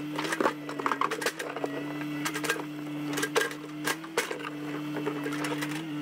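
Backhoe engine running at a steady pitch, with irregular sharp clanks and knocks throughout.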